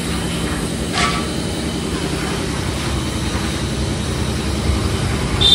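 Steady mechanical drone of running machinery, with a short knock about a second in.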